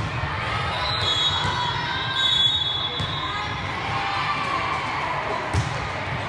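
Busy gymnasium din from volleyball play: a constant murmur of players' voices and calls, with a few sharp thuds of volleyballs being hit or bouncing, the clearest about three seconds in and again near the end.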